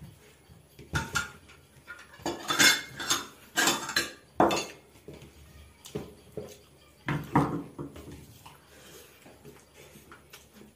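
Dishes and a serving spoon clinking and scraping as food is served from a lidded casserole at a dining table, in a string of short clatters, busiest a couple of seconds in and again about seven seconds in.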